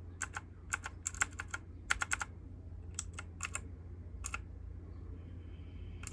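Keys of a T8 RGB mechanical keyboard being pressed, sharp clicks in irregular short runs, thinning out toward the end.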